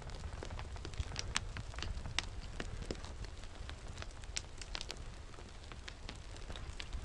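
Loose sand, gravel and small stones crunching, sliding and clattering underfoot on a steep scree slope during a descent: many scattered sharp clicks and crackles at irregular times, over a low steady rumble.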